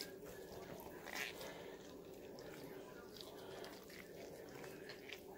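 Soft cooked cabbage leaves being pulled apart and handled, faint wet rustling and crackling with one louder crackle about a second in, over a steady low hum.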